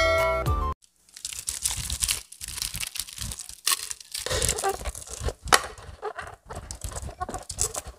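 Intro music cuts off abruptly under a second in, then close-miked crunching and chewing of crispy fried chicken, with irregular crackles from the crisp coating as it is bitten and torn.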